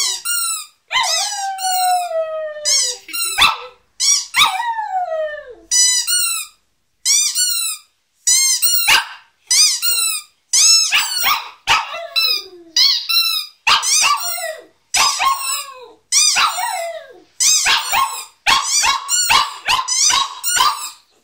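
A Lhasa Apso howls along with a rubber squeaky toy being squeezed. The first few seconds hold long, falling howls; after that the toy squeaks over and over in short bursts, about one a second, with the dog's voice mixed in.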